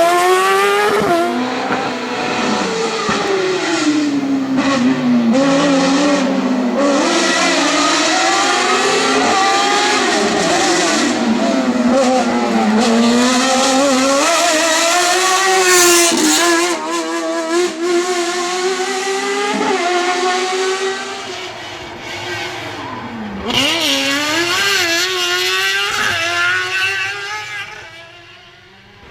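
Fiat 500 Maxi race car engine revving hard at full throttle, its pitch climbing and dropping again and again with gear changes and lifts. There may be some tyre squeal. The engine grows quieter near the end.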